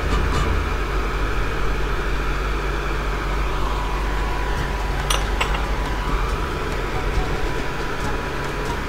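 Steady hum and hiss of an electric cooktop heating a pan of kimchi fried rice, with a faint steady high tone and two sharp clicks about five seconds in.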